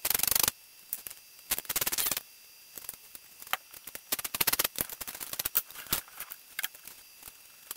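Ratcheting hand driver backing bolts out of a Briggs & Stratton 17 HP engine's sheet-metal blower housing: several short bursts of rapid clicking, with scattered single clicks and taps between them.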